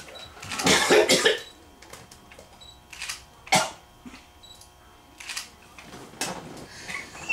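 A man coughing: one long, loud cough fit about a second in, then four shorter coughs spread through the rest.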